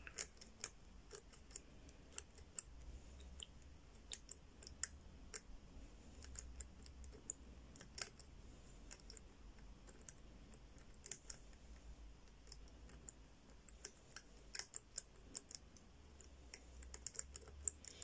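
Faint, irregular clicks of a Zhege four-wheel combination padlock's number wheels being turned notch by notch, with the shackle held under tension to feel for the loosest wheel position while decoding the lost code.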